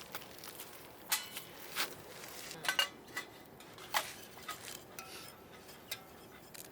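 Metal cookware and utensils clinking and knocking in about eight separate strikes, some leaving a short metallic ring.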